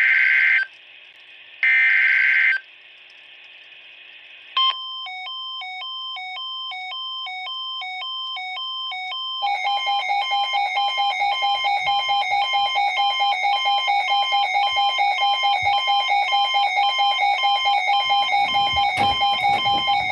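Emergency Alert System tones: the last two of three buzzy digital data bursts of about a second each, then about four and a half seconds in a beeping tone switching between two pitches about twice a second, then, about nine and a half seconds in, a louder steady two-tone attention signal that holds to the end. This is the header-and-tone sequence that opens a broadcast alert.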